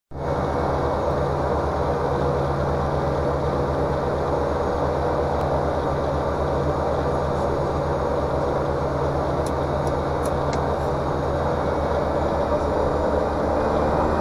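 Cessna 208 Caravan's PT6A turboprop engine and propeller running steadily with a deep drone, the power coming up slightly near the end as the takeoff roll begins.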